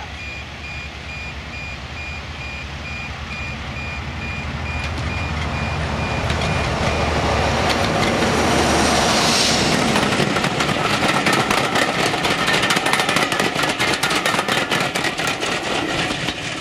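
British Rail Class 45 'Peak' diesel locomotive, its Sulzer twelve-cylinder engine under power, approaching and passing with a train of coaches: the low engine drone builds to its loudest as the locomotive goes by about eight to nine seconds in. After it the coaches' wheels clatter rapidly over the track. A repeating high beep sounds through the first half.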